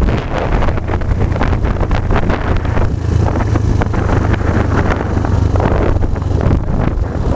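Wind buffeting the microphone while riding slowly through city traffic, over a steady low rumble of engine and road noise.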